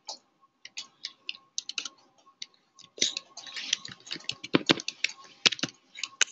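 Typing on a computer keyboard: quick keystroke clicks, sparse at first and coming in a fast run from about halfway through, with a few heavier strokes among them.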